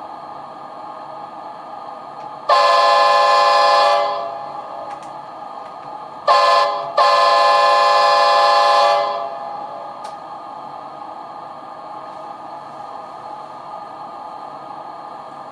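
Train horn sound from an ESU LokSound 5 Fx sound decoder, played through the model cab car's speaker: a blast of about a second and a half, a short toot, then a longer blast of about two seconds. A steady hum runs underneath.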